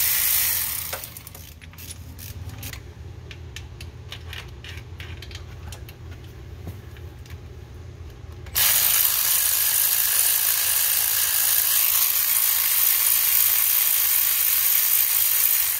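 Light, irregular metallic clicking and rattling of hand tools at work, between a loud steady hiss that fades out about a second in and cuts back in abruptly after about eight and a half seconds.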